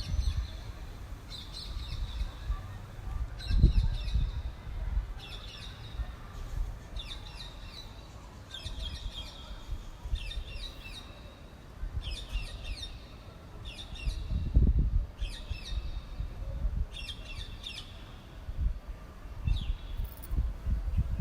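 A bird chirping in short, repeated phrases, about one every second and a half to two seconds, over low rumbling wind gusts buffeting a phone microphone. The strongest gusts come about three and a half and fourteen and a half seconds in.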